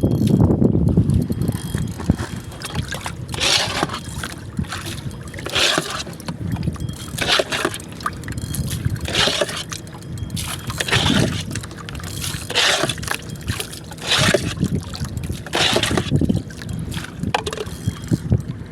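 Paddle strokes in water: a swish and splash about every one and a half to two seconds, as from a kayak being paddled. A low wind rumble on the microphone fades within the first second.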